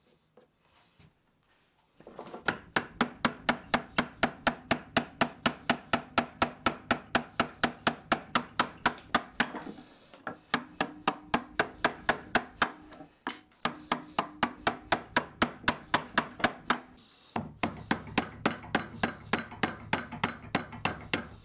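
Mallet striking a chisel cutting into beech: a long run of quick, even light blows, about three or four a second, with a few short pauses.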